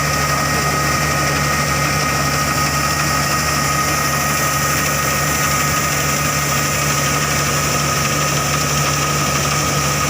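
Claas Crop Tiger 40 combine harvester's diesel engine running steadily, with a steady high-pitched whine over the engine note.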